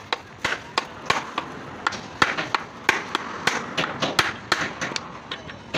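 Rapid, uneven series of sharp metal taps and knocks, about three a second and varying in strength, from a hand tool striking steel parts.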